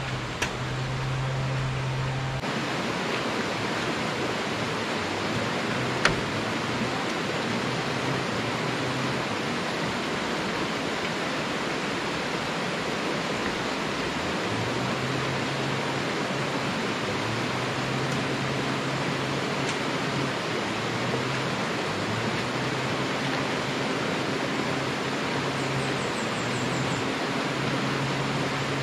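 A steady rushing noise, like running water or wind, with a faint low hum that comes and goes and a single sharp knock about six seconds in.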